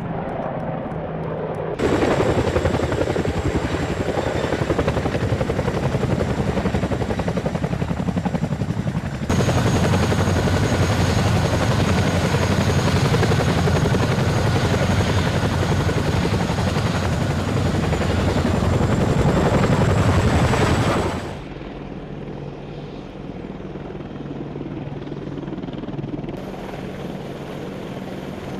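AH-64 Apache attack helicopters, their rotors and twin turboshaft engines running loud as they fly past overhead, in a few clips joined by sudden cuts. About two thirds of the way in it drops to a quieter, steady engine and rotor sound of Apaches on the ground.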